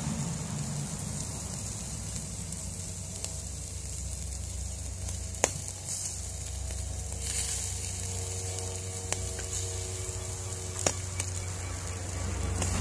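Yellow croaker marinated in sambal, grilling in a wire basket over charcoal, sizzling steadily, with a few sharp pops.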